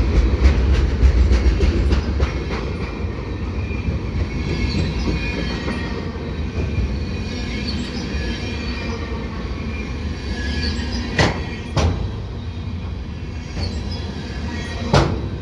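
Freight cars loaded with wind turbine towers rolling past: a steady rumble of steel wheels on rail, louder for the first couple of seconds, with light wheel squeal and a few sharp clacks near the end.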